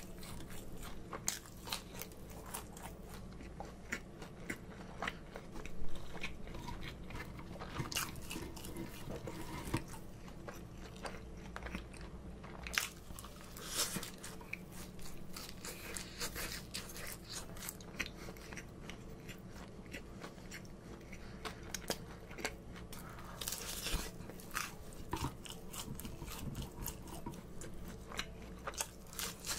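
Close-miked eating of McDonald's chicken nuggets and French fries: many short, crisp crunches of biting and chewing, with a few louder bites.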